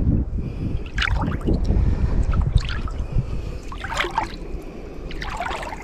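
Shallow lake water sloshing and trickling around legs wading slowly deeper, a splash with each of about four steps roughly a second and a half apart, over a low wind rumble on the microphone.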